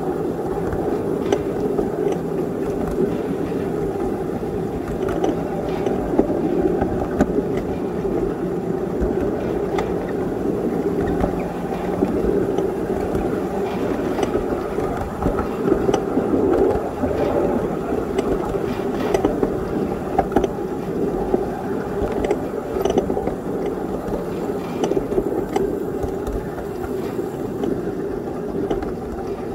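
Ride-on miniature railway train running along its track: a steady rumble of the locomotive's drive and steel wheels on the rails, with scattered sharp clicks.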